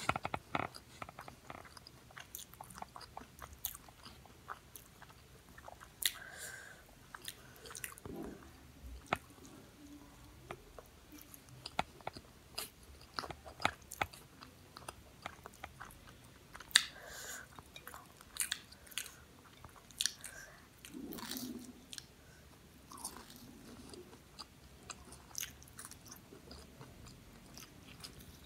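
Close-miked eating of fried samosas: biting and chewing, with crisp pastry crunching and wet mouth clicks coming irregularly.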